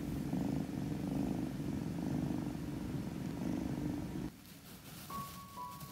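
Young kitten purring steadily and low, cut off abruptly about four seconds in.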